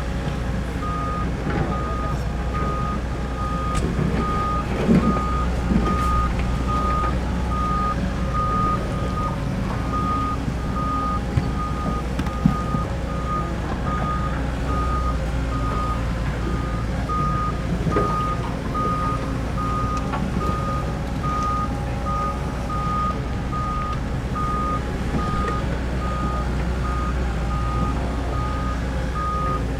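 Steady repeating warning beeps from a machine's motion alarm over the steady running of a heavy diesel machine, likely the excavator's engine. A few short knocks stand out around the first third.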